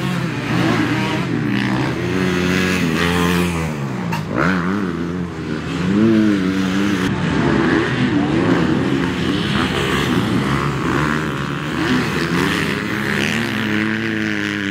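Several motocross bikes racing, their engines revving up and down as riders work the throttle, with more than one engine heard at once.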